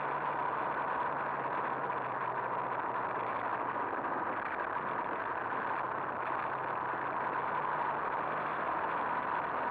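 Small two-stroke motorbike engine running at a steady cruising speed, with a constant rush of wind and road noise.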